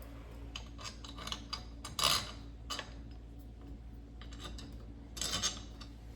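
Light metallic clicks and clinks of sliding-door handle trim hardware being handled and fitted, with the loudest clatter about two seconds in and another short clatter about five seconds in.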